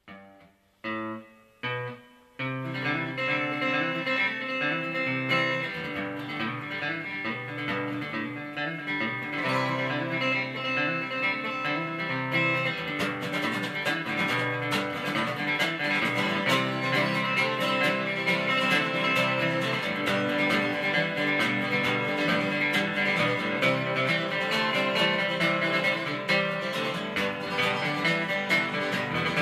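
Two acoustic guitars playing an instrumental song intro: a few separate chords in the first two seconds, then steady strumming and picking together.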